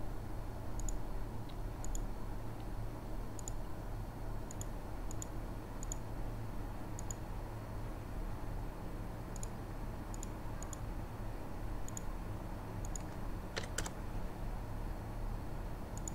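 Scattered light clicks from a computer mouse and keyboard, often in quick pairs, with a short flurry near the end, over a steady low hum.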